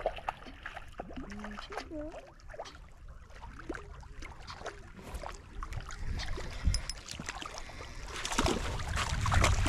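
Light water sounds and small scattered knocks around a small fishing boat, with wind buffeting the microphone from about eight seconds in.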